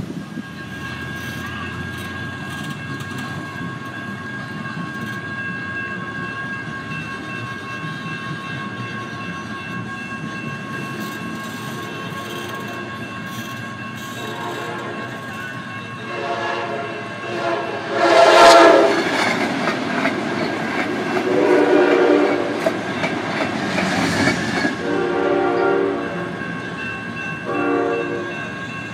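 Grade-crossing warning bells ringing steadily as the gates lower. From about halfway through, an approaching train sounds its horn in a series of blasts, the loudest about two-thirds of the way in.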